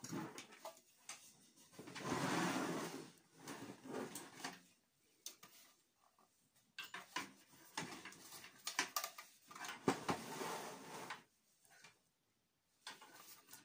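Handling noises from a Compaq computer power supply and a sheet-metal desktop case as they are moved about on a wooden table: scattered knocks and clicks, with two longer sliding, scraping stretches, about two seconds in and again near ten seconds.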